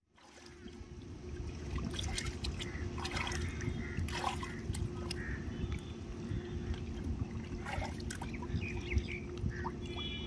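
River water lapping and trickling around a person standing waist-deep, with small scattered splashes over a steady low hum and rumble. The sound fades in over the first second.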